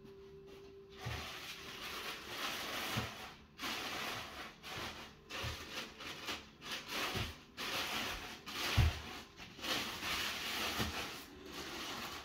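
Clear plastic wrapping rustling and crinkling in bursts as packing is dug through inside a large cardboard crate, with a few dull knocks against the box, the loudest about nine seconds in.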